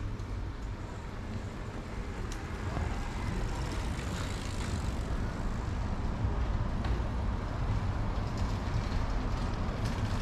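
Outdoor street ambience: a steady low rumble that grows slightly louder over the stretch, with a few faint clicks.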